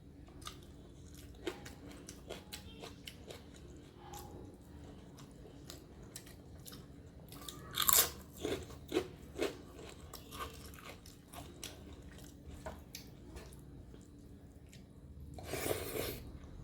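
Close-miked eating: soft chewing and wet mouth clicks, with a loud crunchy bite about eight seconds in followed by a few sharp crunches, and another noisy burst near the end.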